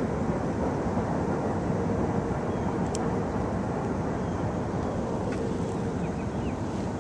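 Steady wind rumbling on the camera microphone over open water, with one sharp click about three seconds in.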